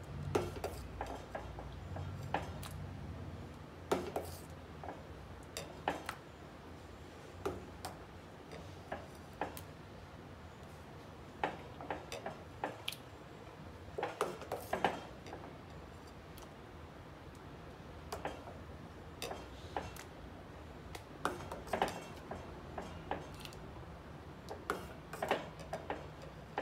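Metal serving utensil and steel pot clinking against a glass bowl while thick rice kheer is served into it: irregular light clinks, a few at a time, busiest about halfway through and near the end.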